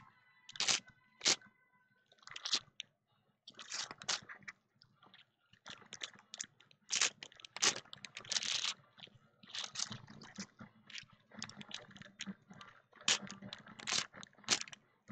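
Trading-card pack wrappers crinkling and tearing as packs are opened, in irregular crackles with a quieter gap about two to three seconds in.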